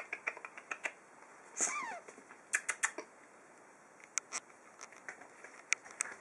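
Scattered light clicks and taps, with one short falling whimper from a young puppy about one and a half seconds in.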